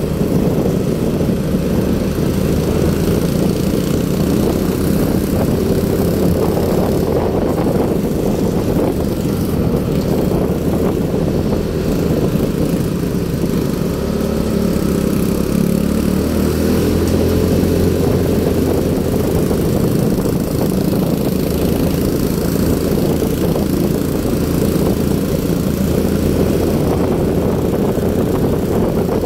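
Motorcycle engine running steadily under way, heard from the rider's own bike.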